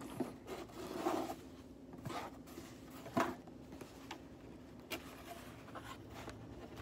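A cardboard gift box handled in the hands: its ribbon slides off, the box shifts and its hinged lid is lifted open, giving soft scratchy rustles and scrapes. A sharper knock about three seconds in and a light click near five seconds.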